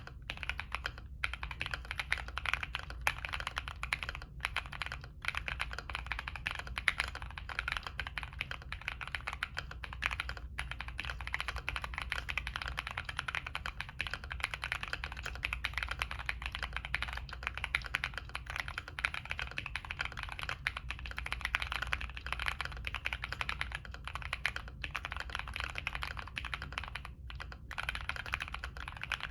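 Fast, continuous typing on a Monsgeek M1 mechanical keyboard fitted with Zenclack Pleiades switches with replacement stems on a POM plate, a rapid stream of keystroke clacks broken by a few short pauses.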